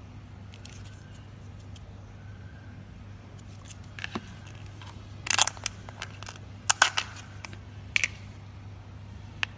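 Foam-bead slime (floam) crunching and crackling under pressing fingers, in several short bursts of crisp pops from about four seconds in. A low steady hum runs underneath.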